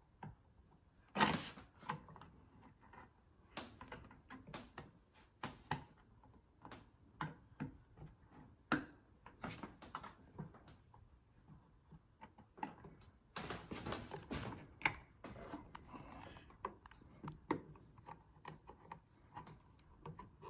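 Hand screwdriver driving a light switch's mounting screw, with irregular clicks and scrapes of metal on metal, busiest near the middle.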